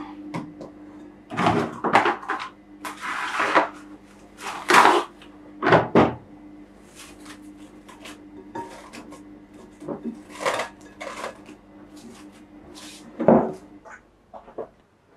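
Cling film being handled and stretched over a glass mixing bowl of bread dough, crinkling, among knocks and clatters on the kitchen counter. A steady low hum runs underneath and stops near the end.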